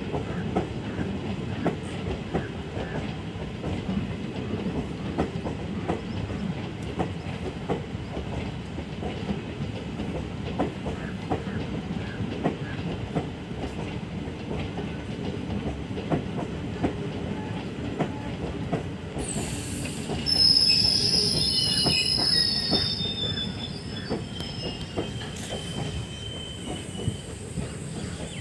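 Passenger train coaches rolling slowly past with a steady rumble and regular clickety-clack over the rail joints. About two-thirds of the way through, high-pitched wheel squealing joins in as the train slows into the station.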